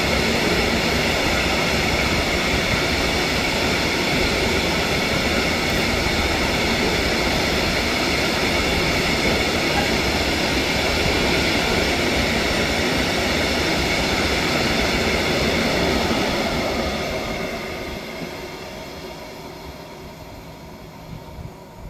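Freight train of open-top wagons rolling past, its wheels running steadily on the rails with a faint high ringing tone over the noise. The sound fades away in the last quarter as the final wagons pass and the train draws away.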